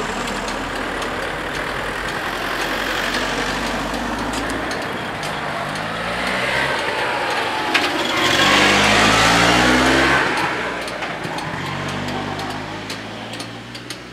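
Cars driving off over a level crossing as the barriers lift, their engines rising in pitch as they accelerate past. The loudest passes about eight to ten seconds in, and a few sharp clicks come near the end.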